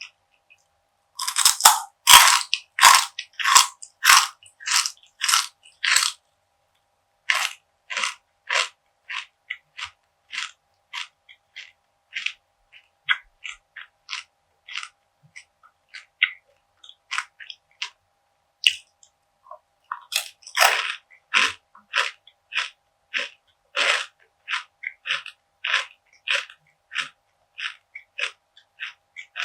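Close-up chewing of crunchy perilla seed brittle (deulkkae gangjeong): crisp crunches in quick succession, loudest in a run of big bites just after the start and again about twenty seconds in, with lighter chewing between.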